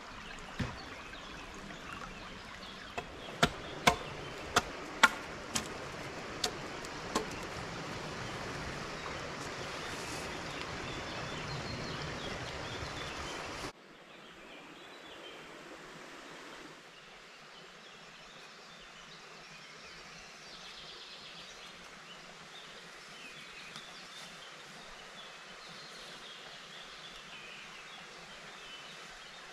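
Stream water flowing steadily, with a run of about eight sharp knocks a few seconds in. About halfway through it cuts off suddenly to quieter woodland ambience with faint birdsong.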